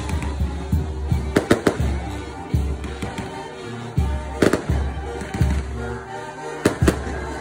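Castillo fireworks going off with several sharp bangs, a quick cluster of three about a second and a half in, then single bangs near the middle and two near the end, with crackling in between. Music with a steady low beat plays throughout.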